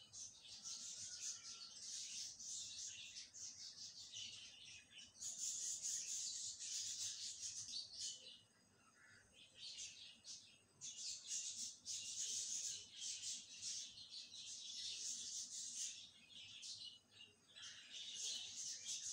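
Small birds chirping and twittering rapidly and continuously, with a lull about halfway through and another shorter one a couple of seconds before the end.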